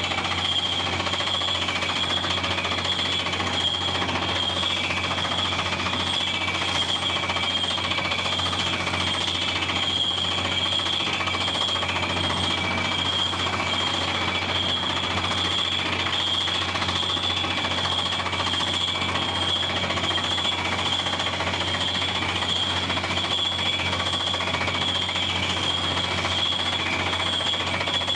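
Water well drilling rig at work: fast, steady pneumatic hammering of air-percussion drilling over the continuous run of the rig and compressor engines, with a steady high whistle.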